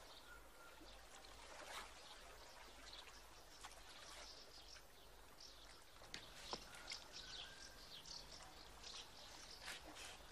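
Faint outdoor ambience: small birds chirping over a soft wash of water, with a few faint clicks in the second half.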